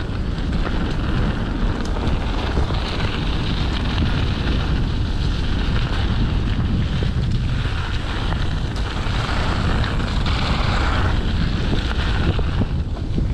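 Wind buffeting the camera microphone of a mountain bike running downhill, over the rolling hiss of tyres on the dirt trail, which swells and fades with the ride.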